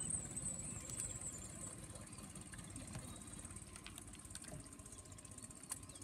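Small dinghy outboard motor running at low speed, a steady low rumble.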